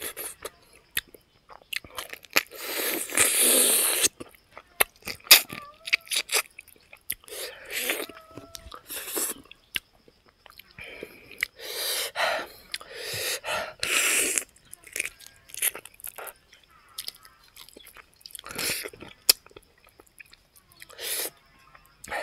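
A person chewing and biting fried pig feet with rice, close to the microphone: wet chewing and crunches mixed with sharp clicks, coming in irregular spells with short pauses.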